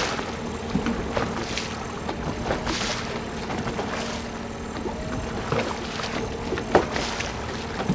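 Outboard motor of a fishing boat running steadily at trolling speed, a constant low hum over wind and water noise, with a few short knocks or slaps against the boat.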